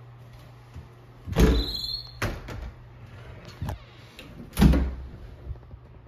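Pair of closet doors with knob handles being pulled open: two loud knocks about three seconds apart, the first with a brief squeak, and lighter clicks between them, over a low steady hum.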